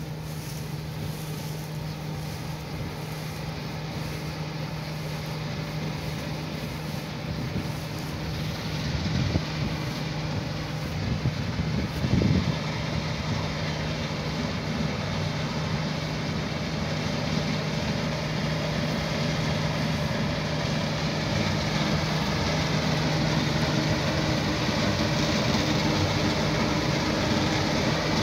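Claas Dominator 88 combine harvester running as it cuts grain: a steady low engine hum with the noise of the threshing machinery, growing gradually louder as it comes closer.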